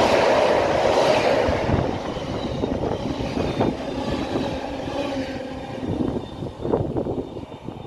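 Container freight train's flat wagons rushing past at speed, wheels clicking and rattling over the track. The noise fades steadily as the last wagons pass and the train moves away.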